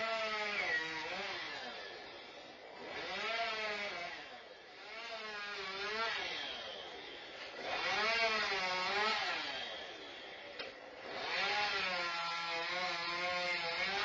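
Chainsaw revving up and easing off about five times, its pitch rising and falling with each burst.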